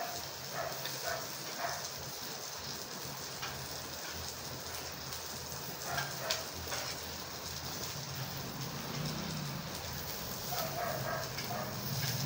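Food frying in a pan, a steady sizzle, with a metal utensil tapping and scraping the pan a few times, clearest near the start and about six seconds in.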